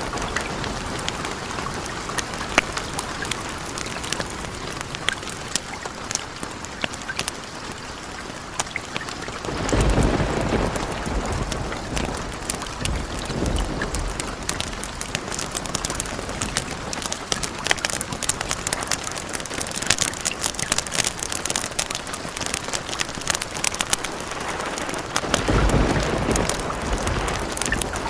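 Steady rain hissing, thick with sharp crackles and ticks, with thunder rumbling twice: a long roll about ten seconds in and another starting near the end.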